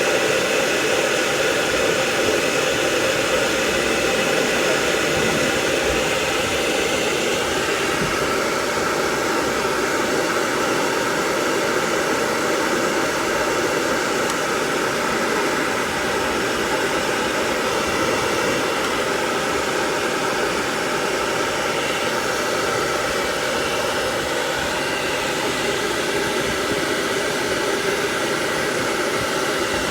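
Dryer blowing steadily on a dog, a constant rush of air that does not change.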